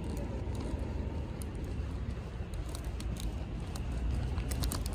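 Steady low rumble of outdoor street noise, with faint light ticks scattered through it.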